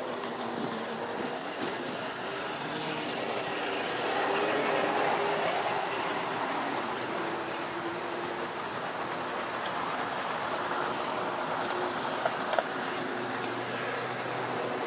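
OO gauge model diesel locomotive running slowly along the track: its small electric motor whirring steadily with the wheels running on the rails. A couple of sharp clicks stand out, about two seconds in and near the end.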